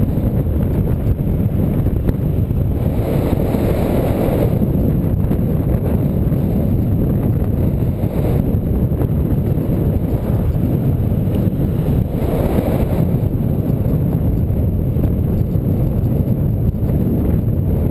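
Wind buffeting the microphone of a bicycle-mounted camera while riding: a loud, steady low rumble that swells a few times.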